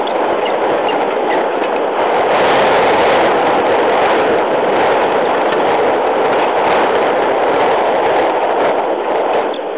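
Game-drive vehicle on the move: a steady rumble of engine and road noise.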